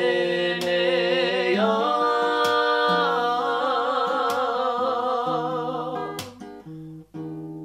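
Two voices singing long, wavering held notes over a strummed acoustic guitar. The singing stops about six seconds in, and a last guitar chord rings out near the end.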